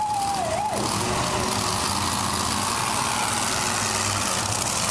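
Monster truck engines running steadily, a thick continuous engine noise over the track.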